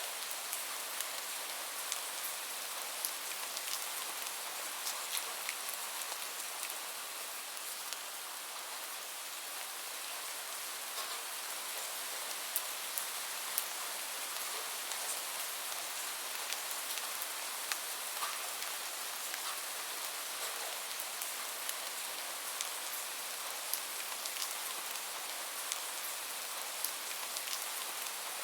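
Light rain falling steadily, a continuous hiss with many scattered drops ticking on a hard surface.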